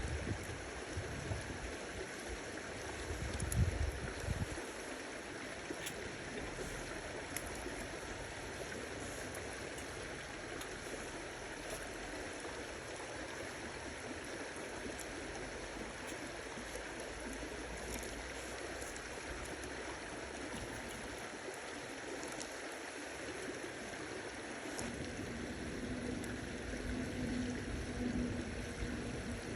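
Steady rush of running water like a stream, with a few faint ticks and low rumbling bumps in the first few seconds.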